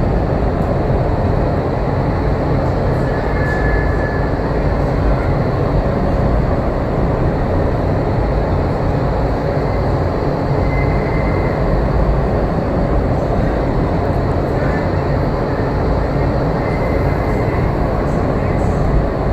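Indoor skydiving vertical wind tunnel running: a loud, steady roar of rushing air and fans.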